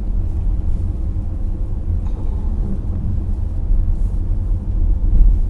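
Low, uneven rumble inside a car cabin.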